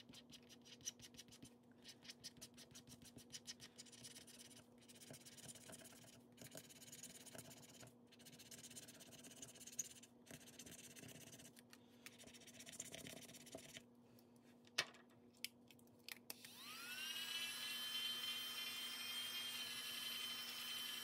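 Faint scratching as a scratch-off challenge sheet is rubbed off, in quick strokes in bursts with short pauses and a couple of sharp clicks. About 16 s in, a small electric motor spins up and runs with a steady whine.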